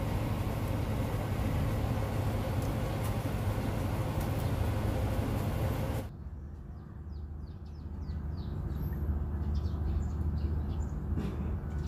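Steady rushing background noise over a low hum, which drops away suddenly about six seconds in. After that a quieter low hum remains, with small birds chirping again and again.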